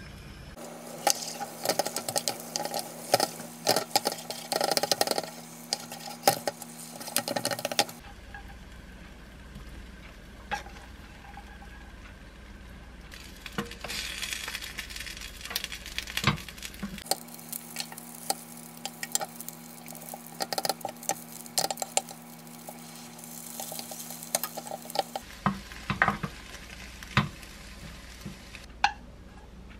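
Beaten egg sizzling in a square nonstick egg-roll pan on a gas burner, with frequent sharp clicks and scrapes as fried rice is spooned onto the egg and a wooden spatula works and rolls the omelette against the pan.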